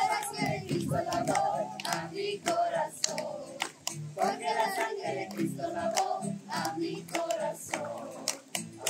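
A group of voices singing together, with hands clapping in time about twice a second.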